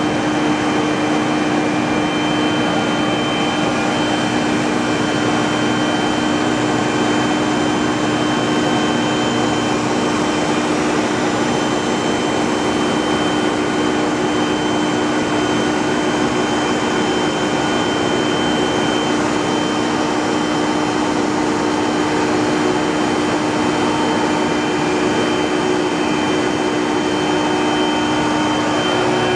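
Industrial plastics-processing machinery running steadily: an even mechanical hum with a constant low tone and a thin high whine.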